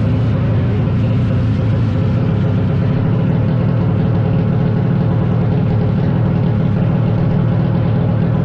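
Drag-race motorcycle engine running steadily at idle, loud and unchanging, with no revving.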